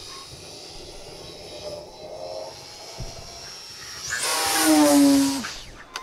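Explorer BF 4-metre electric sailplane making a fast pass: a rushing whistle swells about four seconds in and drops in pitch as it goes by.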